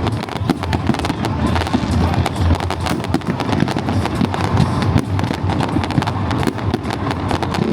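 Fireworks display: a continuous, rapid crackle of many small bangs and pops, with music underneath.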